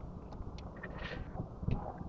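Faint handling sounds of cloth being worked by hand: soft rustles and a few small ticks, with a brief soft hiss about a second in.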